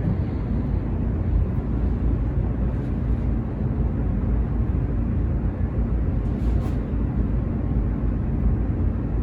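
Steady low rumbling hum with no breaks.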